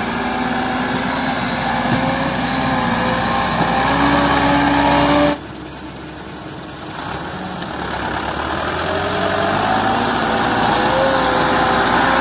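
Tractor diesel engine running hard, its pitch slowly rising. About five seconds in the sound drops suddenly, then builds back up as the engine pulls again.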